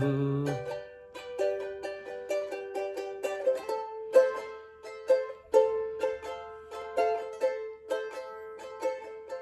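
Tahitian ukulele strummed in an instrumental break, a quick even rhythm of bright strokes around a repeated melody note.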